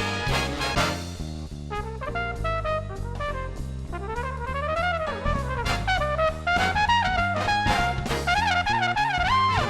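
Background music: upbeat swing-style jazz with a lead trumpet playing a gliding melody over a walking bass and drums.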